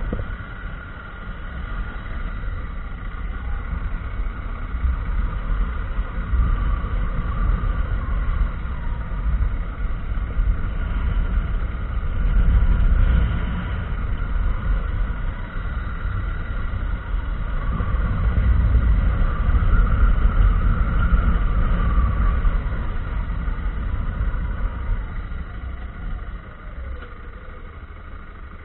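Motorcycle engine running under way with a deep, steady rumble, recorded on a camera mounted on the bike. The level swells and eases as the rider works the throttle, dropping away near the end as the bike slows.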